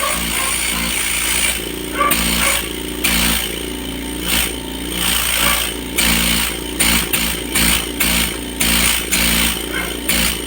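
Oil-free dental air compressor running on test after its burnt piston seal was replaced: a steady motor hum with rattly, uneven swells in loudness.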